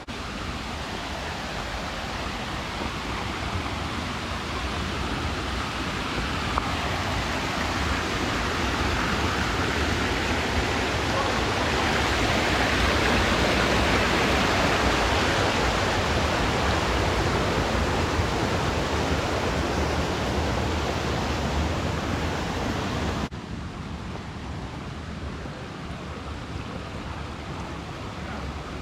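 The River Rivelin rushing: a steady roar of flowing water that grows louder over the first half, then drops suddenly to a quieter rush near the end.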